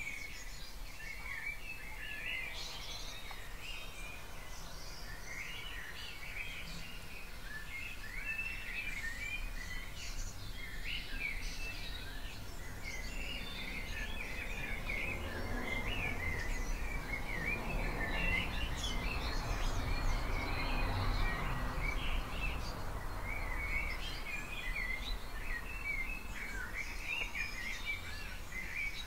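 Dawn chorus of many garden songbirds singing at once, a steady tangle of chirps and short song phrases. A low rumble swells and fades under the birds from about halfway in to about three quarters in.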